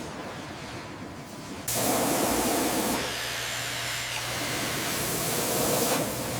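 A loud, steady hiss starts abruptly less than two seconds in, over a low steady hum, and eases slightly a second later.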